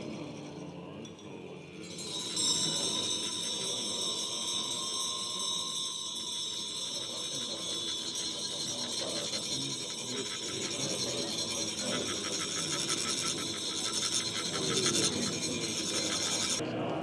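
Metal chak-pur sand funnels being rasped with a rod to trickle coloured sand onto a sand mandala: a fast, rough scraping that starts about two seconds in and stops abruptly near the end.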